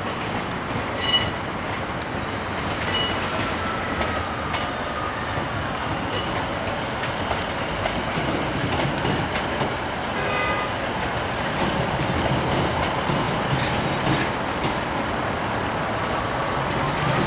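ScotRail diesel multiple unit running slowly through station pointwork with a steady rumble of engine and wheels that grows slightly louder as it nears. Its wheel flanges give brief high-pitched squeals at about 1 s, 3 s and 10 s.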